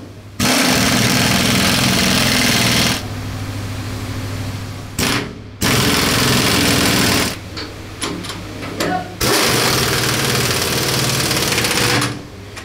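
Pneumatic impact wrench hammering nuts tight on the bolts that hold a Grant tank's suspension bogie housing to the hull. It runs in four bursts: two of about two to three seconds, one brief, one of about a second and a half, with short pauses between.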